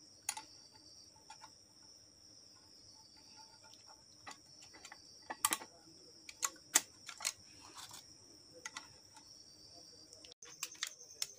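Faint, scattered clicks and ticks of steel piston rings being worked by hand over a diesel engine piston and seated in its ring grooves.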